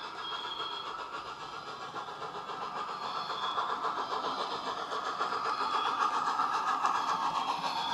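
Sound decoder in a model LNER A3 Flying Scotsman playing quick, even steam-exhaust chuffs through its small speaker. The chuffs get louder from about halfway in as the locomotive comes closer.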